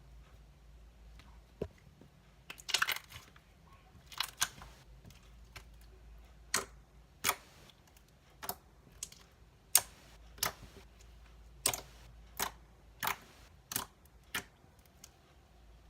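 Homemade slime being pressed and stretched by hand, giving sharp little clicks and pops, a few scattered early on and then one about every half to one second from about six seconds in.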